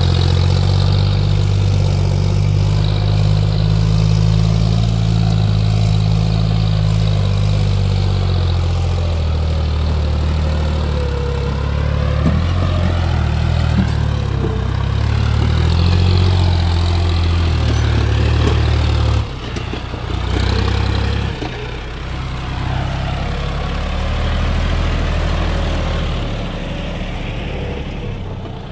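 John Deere 5036 tractor's diesel engine running steadily while hauling a fully loaded trolley of soil and rock. The engine note drops and changes briefly about two-thirds of the way through, then carries on.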